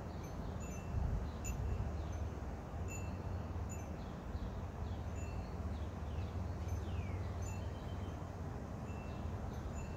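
Small birds chirping: short high chirps scattered throughout and one falling whistle about seven seconds in, over a steady low rumble.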